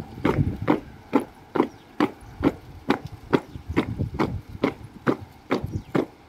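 A steady train of sharp knocks, a little over two a second, evenly spaced like a marching beat.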